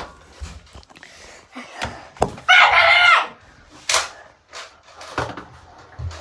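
A child's high shriek lasting under a second, about halfway through, with a few sharp knocks around it, loudest just before the shriek and about a second after it.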